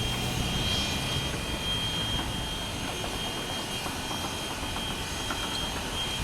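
Train running with a steady mechanical rumble and a thin, steady high whine above it.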